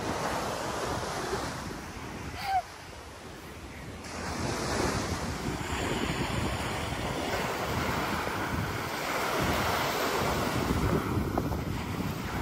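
Small sea waves breaking and washing up on a sandy shore, with wind rumbling on the microphone. The sound dips briefly a couple of seconds in, then the surf swells up again and runs on in rolling surges.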